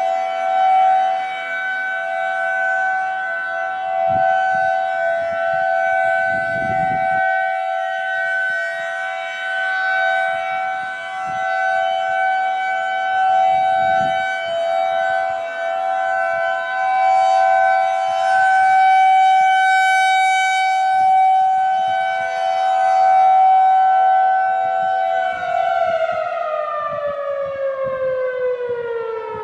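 Federal Signal 2001-SRN dual-tone outdoor warning siren holding a steady two-note chord, the alert signal. About four seconds before the end it starts winding down, its pitch falling steadily.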